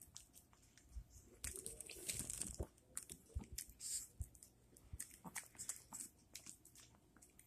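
A Chihuahua biting and chewing a soft bread-roll sandwich held right at its mouth: faint, irregular crunching bites and mouth clicks, busiest about two seconds in.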